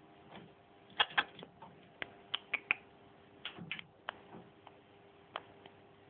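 Irregular sharp clicks and taps, about a dozen, the loudest pair about a second in, from cockatiels moving about a wire cage and clicking against its bars and toys. A faint steady hum runs underneath.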